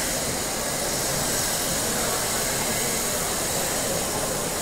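Steady hubbub of a walking crowd in a large hard-floored hall: indistinct murmur and movement under an even hiss.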